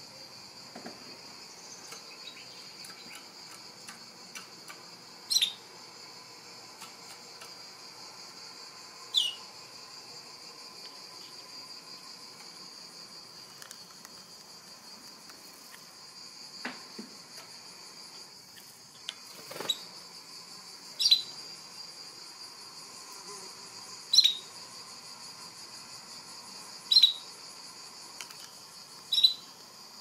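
A canary giving short single call notes, about seven in all, each a quick chirp falling in pitch, spaced a few seconds apart and more frequent in the second half. Underneath runs a steady, faint, high-pitched hiss.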